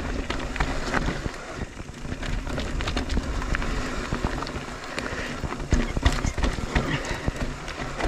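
Mondraker Crafty Carbon R electric mountain bike being ridden over a rough trail: wind rumbling on the microphone, tyres running over dirt, and a steady scatter of sharp clicks and knocks from the chain and frame rattling over bumps.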